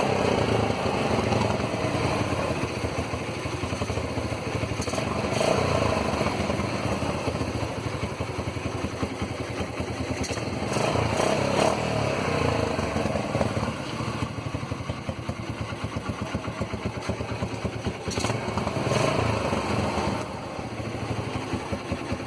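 Motorcycle exhaust through a stock Yamaha silencer that has been punctured with a screwdriver, giving a louder, rasping note likened to a "bala" (straight) exhaust. The engine starts up right at the beginning and runs, with three brief rises in revs.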